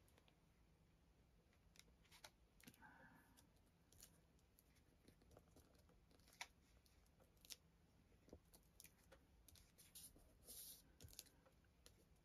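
Near silence, with faint scattered taps and soft paper rustles as fingers press a paper pocket flat onto a journal page.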